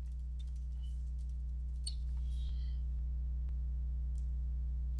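Computer keyboard typing: a run of faint quick key clicks, thinning out after about two seconds, over a steady low electrical hum.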